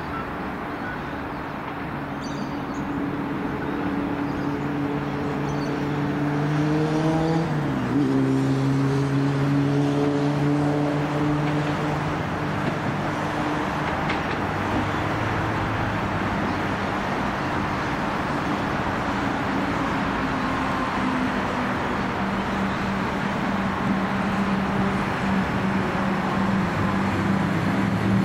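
Comeng electric train pulling into a station: a whine from the train rising in pitch, dropping suddenly about eight seconds in, then settling into a steadier lower hum over a constant rumble.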